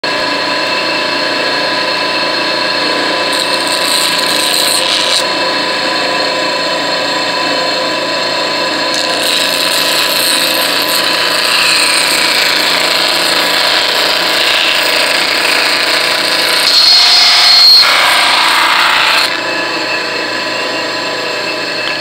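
Small electric saw running steadily as its blade cuts through a foam skull pattern. The cutting noise rises near the end, then eases.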